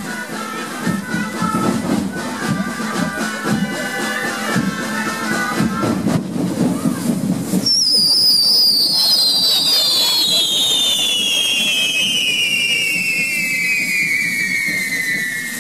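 Music for the first half, then about halfway through a correfoc firework lets out a loud whistle that starts high and falls steadily in pitch until the end, over the hiss of spraying sparks.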